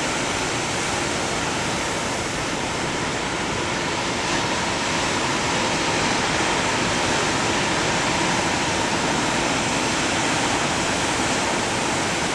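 Ocean surf breaking and washing as whitewash: a steady rushing noise with no distinct wave crashes, slightly louder from about four seconds in.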